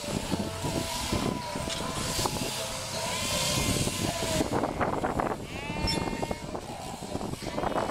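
Sheep bleating, with two clear calls about three seconds in and again just before six seconds, over a steady mechanical hum from the electric shearing handpieces.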